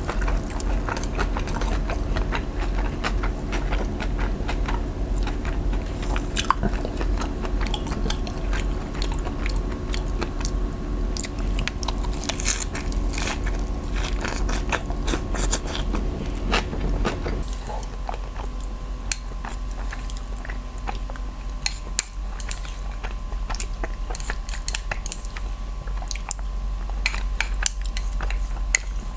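Close-up eating sounds: a lettuce wrap of grilled meat being bitten into and chewed, with crisp lettuce crunching and many small wet clicks.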